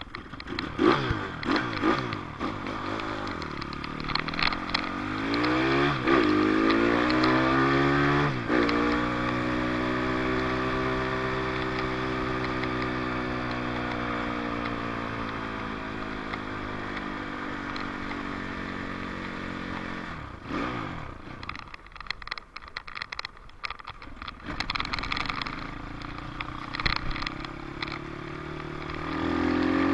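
Dirt bike engine pulling through the gears, its pitch climbing and dropping back with each shift, then holding a long steady note that slowly sinks. It falls away about two-thirds of the way through and revs up again near the end.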